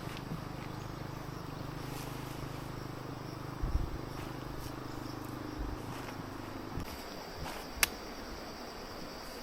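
Steady insect chirring, with a couple of soft knocks and one sharp click about eight seconds in.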